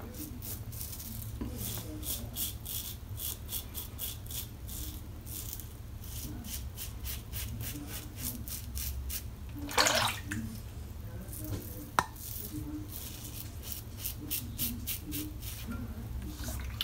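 Karve CB safety razor scraping through lathered stubble on the neck in many short, repeated strokes, each a dry crackle, from a blade on about its twentieth shave that is still cutting smoothly. About ten seconds in there is a brief louder rush, and a sharp click two seconds later.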